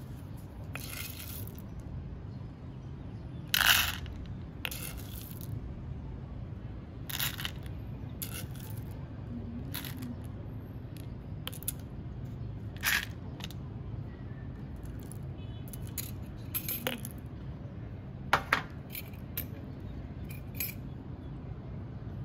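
Scattered sharp clicks and light clinks of small hard objects being handled while making pour-over coffee, about a dozen at irregular intervals over a steady low hum.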